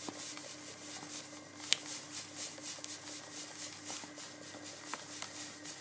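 Sugar being poured from a bag into a saucepan of boiling blackberry mash: a soft granular rustle with many small ticks and a couple of sharper clicks, over a faint steady hum.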